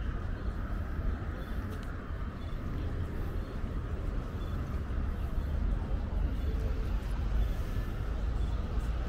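Outdoor city ambience: a steady low rumble of traffic, with faint voices of people walking by.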